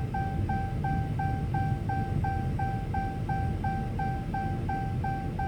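Repeated electronic beeping, a single pitch sounded about three times a second without a break, over a low rumble.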